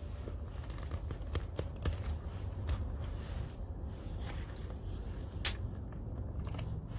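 Clothing and leather belt gear rustling as a hand works at a knife sheath, with a few small clicks and knocks, the sharpest about five and a half seconds in, over a steady low rumble.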